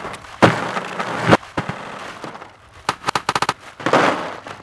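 Bagged ice cubes poured into a plastic kiddie pool, clattering and crackling. A loud rush comes about half a second in, a quick run of clicks around three seconds, and another rush near the end.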